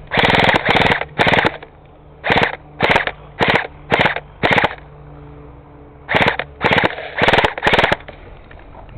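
Airsoft gun firing on full auto in about a dozen short bursts, each a fraction of a second of rapid clicking shots, in three groups with brief pauses between.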